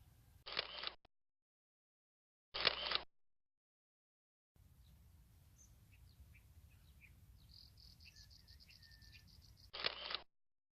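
A camera shutter fires in three short rapid bursts of about half a second each: near the start, about two and a half seconds in, and near the end. Between the bursts, faint birdsong with small chirps and a quick trill of repeated high notes.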